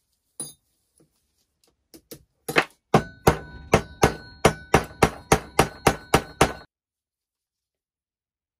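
Hammer peening a rivet on the steel stirrup of a brass stirrup water pump, worked on a steel block: a few light taps, then a fast run of about fifteen strikes at roughly four a second, each with a short metallic ring.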